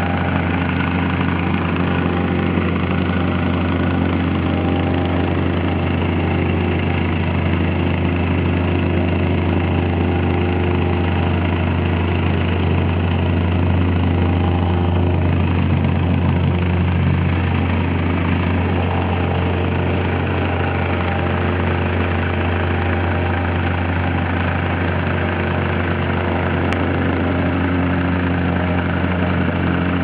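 Petrol-engined vibratory plate compactor running at a steady drone, its engine and vibrating plate giving a constant low hum with a fast pulsing beat.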